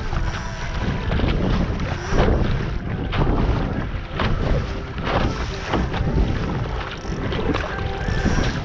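Wind buffeting the microphone over the rush of water along the hull of a Laser sailing dinghy under way, with irregular splashes and slaps of chop against the bow.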